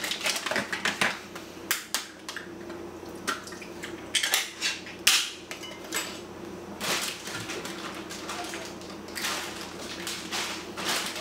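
Irregular metallic clinks and clatters of a sardine tin and kitchen utensils being handled at a counter, over a faint steady hum.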